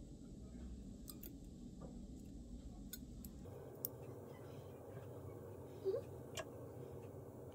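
Faint clicks and ticks of steel surgical instruments, a needle driver and forceps, handling suture over a low steady hum, with a brief squeak about six seconds in.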